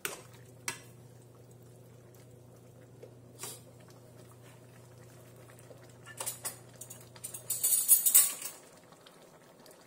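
A metal serving spoon clicks against a nonstick pan of simmering stir-fry a few times. About six seconds in, a short burst of rustling and clattering follows, the loudest sound here.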